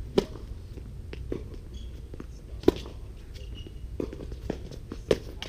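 A tennis rally on a hard court: sharp pops of rackets striking a tennis ball, starting with a serve just after the start. Three loud hits come from the near player, with fainter hits from the far end of the court in between.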